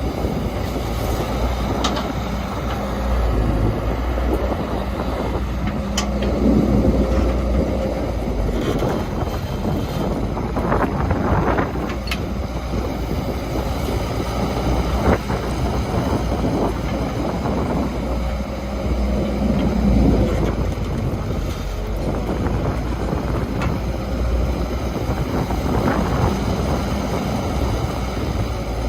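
Heavy construction machinery, excavator and dump truck diesel engines, running steadily under work, with a few sharp knocks now and then.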